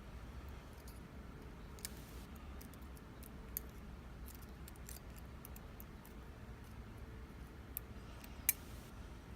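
Scattered small metallic clicks and taps as the parts of a disassembled Abus E20 padlock are handled, over a steady low hum. The sharpest click comes about eight and a half seconds in.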